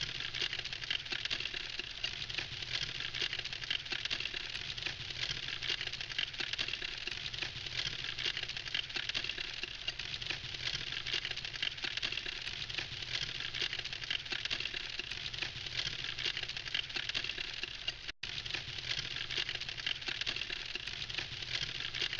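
Wood campfire crackling steadily, a dense run of small pops and snaps over a soft rushing of flames. The sound cuts out for a split second about eighteen seconds in.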